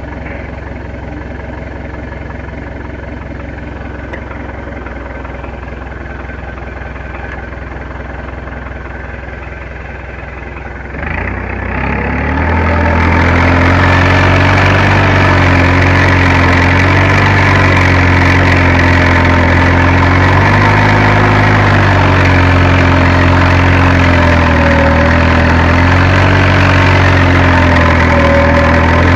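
Fiat Agri tractor's diesel engine running steadily at low revs, then about a third of the way in it revs up over a couple of seconds and holds at a higher, much louder speed, its pitch wavering slightly.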